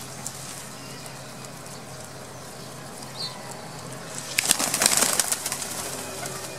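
A flock of pigeons feeding on grain, with a loud flurry of wing flapping about four seconds in that lasts about a second.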